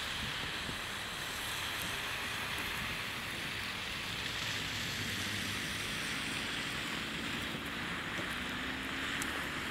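Steady hiss of car tyres through slush on a snowy street, mixed with wind on the microphone, with a faint engine hum that rises slowly in pitch near the end as a car pulls away.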